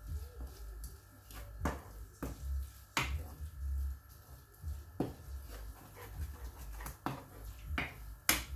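Wooden spatula knocking and scraping against a frying pan while minced beef is stirred: about seven sharp, irregular knocks, the loudest near the end.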